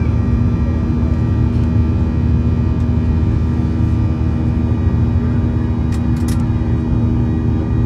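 Boeing 737 cabin noise in the climb after takeoff: the turbofan engines and rushing air make a steady low drone with a constant hum over it. A few faint ticks come about six seconds in.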